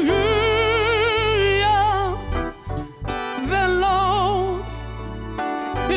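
Gospel singing: one voice holds long notes with a wide vibrato over a steady low accompaniment, with a short break around the middle.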